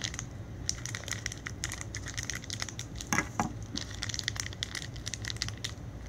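Shopkins blind-bag packaging crinkling and crackling under the fingers in a dense run of small irregular crackles, as the toy inside is felt through the bag.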